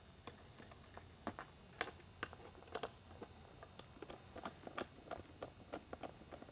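Screwdriver turning small screws out of a Whelen M6 lighthead's aluminium back: a faint run of small irregular clicks and ticks, several a second.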